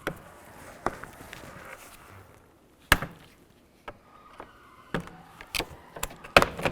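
Sharp plastic clicks and knocks, about eight spread irregularly, the loudest about three seconds in and near the end: a trim tool pressing in the retaining tabs of a plastic interior door handle and the handle snapping loose as it is pushed out through the door panel.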